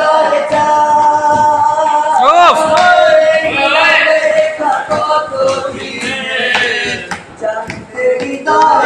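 Men singing loudly, holding long notes, with a quick wavering swoop in pitch about two and a half seconds in.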